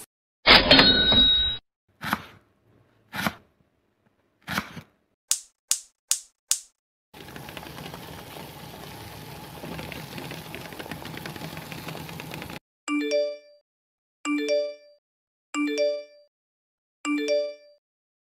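A run of short separate sound effects with gaps of silence: a loud burst with ringing tones, three quick swishes, four quick high chirps, about five seconds of steady hiss, then four identical chime-like tones about a second and a half apart.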